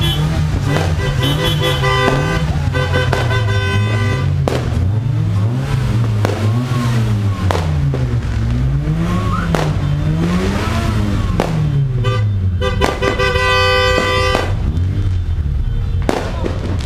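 Car horns honking in repeated short blasts, over a low tone that keeps rising and falling, with a few sharp bangs in the middle.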